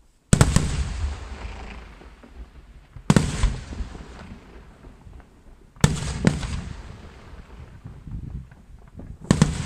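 Aerial firework shells bursting high in the sky: five sharp booms, one about every three seconds with a pair close together in the middle. Each boom is followed by a long fading echo.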